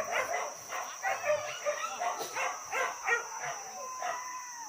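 Boar-hunting dogs barking and yelping in quick succession, several barks a second, thinning out near the end.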